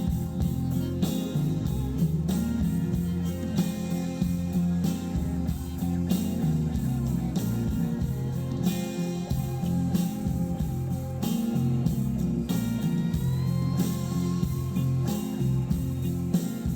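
An instrumental passage of a song with guitar, bass and drums, played back over a hi-fi system.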